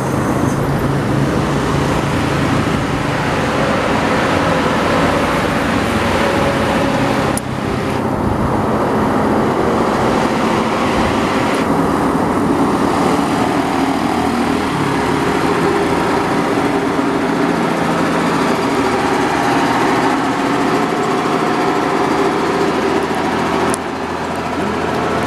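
Diesel truck engines labouring uphill under load, a loud steady drone. First a light box truck, then, after an abrupt change about a third of the way in, an old Mercedes-Benz cargo truck pulling its load up the grade.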